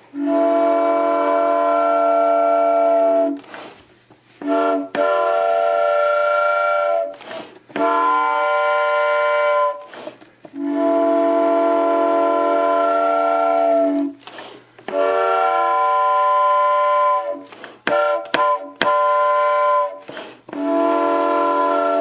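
Multi-tube toy train whistle with a Southern Pacific Lines emblem, blown in a series of blasts. Each blast is a steady chord of several notes. Long blasts of two to three seconds alternate with shorter ones, and a quick run of short toots comes near the end.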